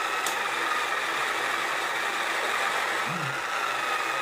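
Small electric motor of a mini pottery wheel running steadily, a constant hum with a thin high whine, as the wheel head spins under clay.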